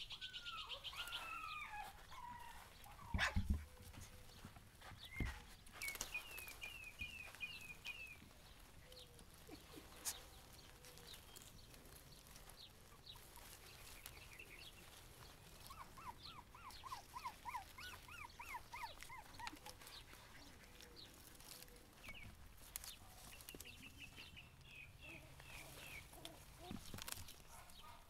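Cavalier King Charles Spaniel puppies whimpering and squeaking in runs of short, high cries. A couple of sharp knocks come about three and five seconds in.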